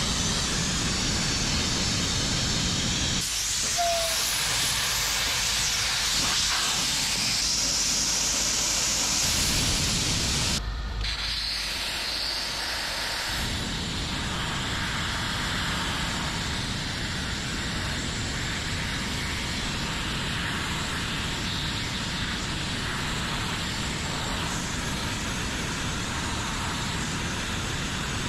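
Sandblaster nozzle blasting abrasive onto chrome-plated aluminum motorcycle parts, a steady hiss with a brief break about eleven seconds in. The blast is stripping the flaking chrome and nickel plating off the aluminum.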